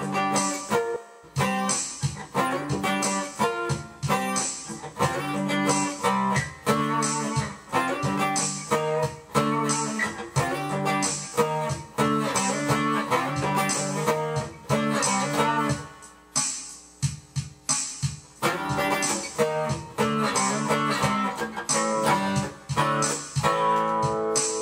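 Guitar music: a guitar strummed and picked in a steady rhythm, easing off briefly about two-thirds of the way through before picking up again.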